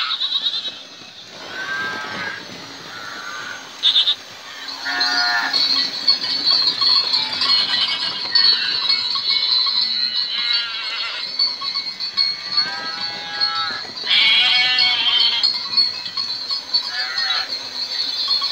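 Electronic sound units in model railway livestock wagons playing recorded farm animal calls, goat and sheep bleats and cattle moos, one after another and overlapping, about every one to three seconds.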